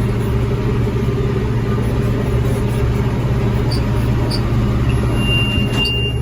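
Tractor engine running steadily under load, driving a New Holland BR 750 round baler. About five seconds in, a steady high-pitched electronic beep starts from the baler monitor, signalling that the bale is full and ready to wrap.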